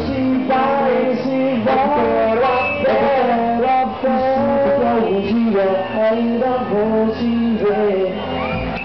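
Live band music: a male singer singing into a microphone over electric guitar, bass, keyboard and percussion.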